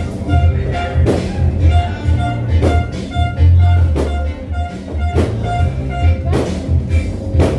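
A DJ mix played loud through outdoor PA speakers and a subwoofer, with a heavy, shifting bass line, a repeating melody and sharp beats about once a second.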